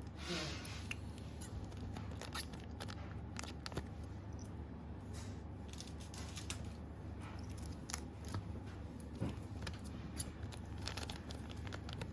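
Light rustling and scattered clicks as a foil Pokémon card booster pack is opened and its cards are slid out and handled, over a steady low hum.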